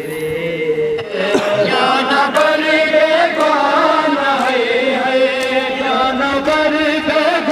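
Male voices chanting a noha, a Shia mourning lament, in long held notes that waver slowly in pitch.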